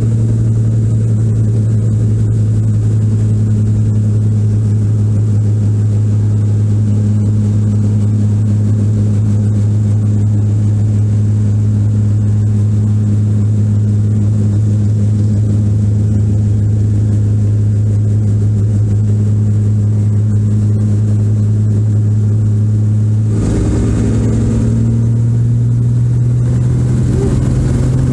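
Robinson R44 helicopter heard from inside the cabin: the piston engine and rotor running with a loud, steady low drone. Near the end the drone steps up slightly in pitch as rotor speed or power changes.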